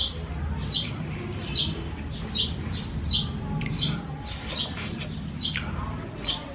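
A bird calling over and over, a short high chirp that falls in pitch, repeated roughly every second, over a low steady hum.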